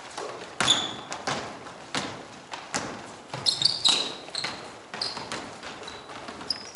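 A basketball bouncing on an indoor court, several irregular bounces roughly a second apart. Short high-pitched sneaker squeaks come in a cluster around the middle.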